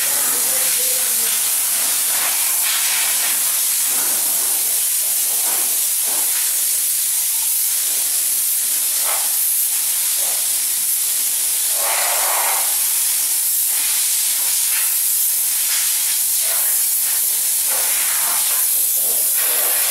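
Compressed-air blow gun hissing steadily as its jet is played over a car's body panels to blow off fine dust.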